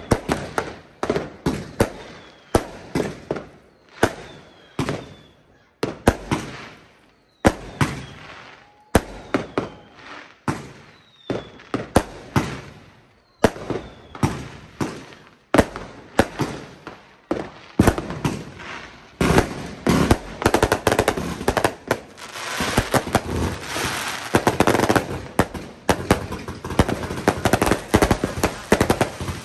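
Fireworks going off: aerial shells and rockets bursting with sharp bangs about once a second. Over the last ten seconds or so the bangs crowd into a dense, near-continuous crackle of many explosions.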